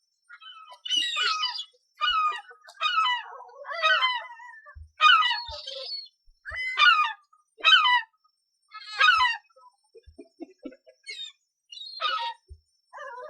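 Gull calling: a run of about nine short calls that fall in pitch, roughly one a second, with a pause of a couple of seconds near the end.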